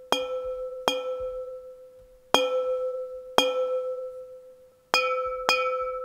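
Recorded champagne glass flicked with a finger, played back as samples six times in a row. Each note is a sudden bell-like ping that rings at one steady pitch and dies away over a second or so. The loudness differs slightly from note to note.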